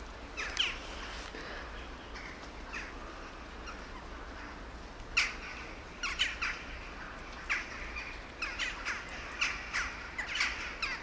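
Birds calling in short separate calls, one about half a second in, then more from about five seconds in, coming thick and fast over the last three seconds, over a faint steady low hum.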